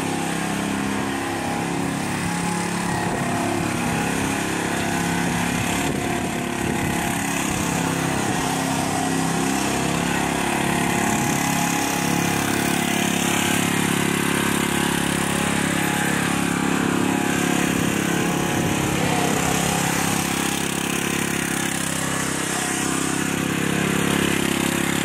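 Riding lawn mower's small engine running steadily under way, its pitch and level holding even throughout.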